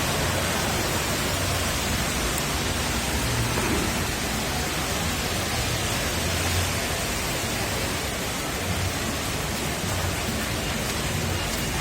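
Heavy rain falling, a dense steady hiss with no break.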